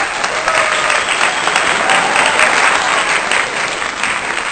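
Crowd cheering and applauding, a dense steady wash of clapping and shouting.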